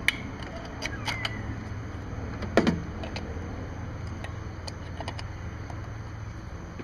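Plastic recoil starter housing of a Kohler Courage lawn mower engine being lifted off and handled against the engine shroud while the replacement starter is trial-fitted: a few scattered clicks and knocks, the loudest about two and a half seconds in.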